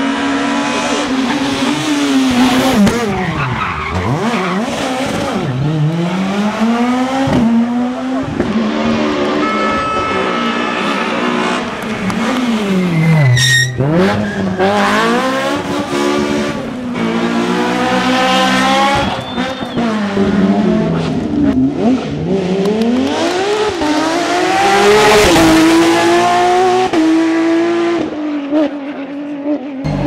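Rally cars on a tarmac stage passing one after another, engines revving hard and falling back through gear changes, with tyres squealing as they slide through corners. A single sharp crack sounds just under halfway through.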